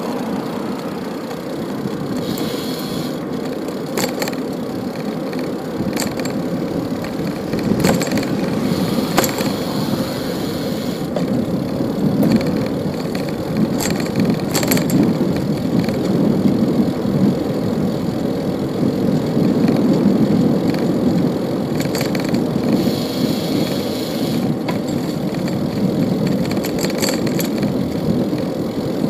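Bicycle being ridden along a city street: a steady rumble of tyres and moving air, with scattered rattles and clicks from the bike.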